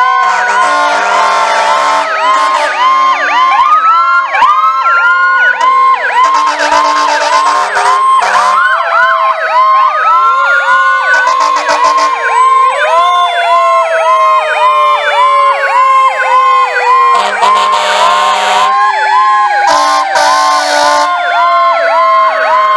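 Several emergency-vehicle sirens sounding at once as a parade of sheriff's vehicles and fire trucks passes. A fast yelp repeats several times a second, and other sirens rise quickly and then wind down slowly over several seconds. Repeated horn blasts cut in now and then.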